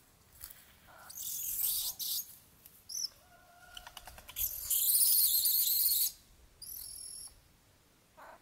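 Bird calls and chirps in several short high-pitched bursts. The loudest is a hissing, buzzing stretch of about a second and a half near the middle, and a brief ringing call comes soon after it.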